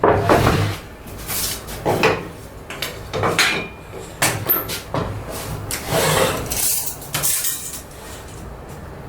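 A pine board being handled and shifted on a work surface: irregular wooden knocks and scraping, with no power tool running.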